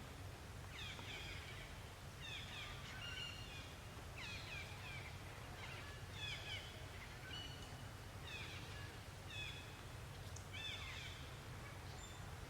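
Repeated high chirping calls, each sliding downward in pitch, in clusters about once a second over a steady low rumble.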